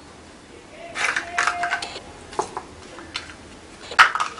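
Hard plastic clicking and rattling as inkjet printer cartridges and their small plastic clips are handled: a cluster of rattles about a second in, a few single clicks, and a sharper, louder click near the end.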